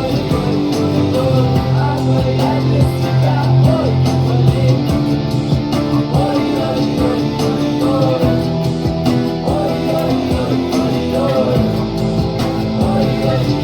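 Music: a guitar strumming a steady song rhythm over sustained instrumental backing.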